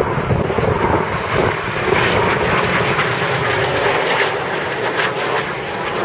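Jet engines of the Red Arrows' BAE Hawk trainers flying in formation overhead: a steady, loud rushing jet noise that turns hissier from about two seconds in.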